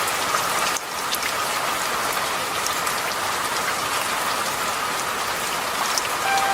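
Steady rain falling, an even patter with scattered fine drop ticks, briefly dipping in level about a second in.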